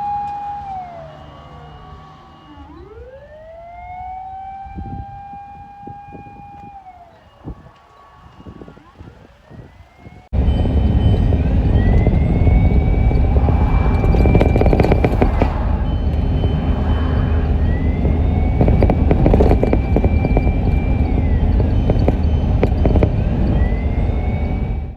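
Emergency-vehicle siren wailing: its tone rises, holds and then falls, over and over every few seconds. About ten seconds in, the sound jumps to a much louder, closer siren over a heavy low rumble of vehicle noise.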